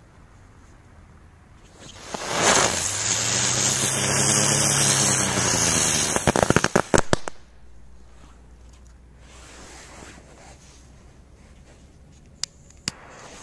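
A small ground firework burning on ice: a loud steady hiss of sparks for about five seconds, ending in a rapid string of sharp crackles.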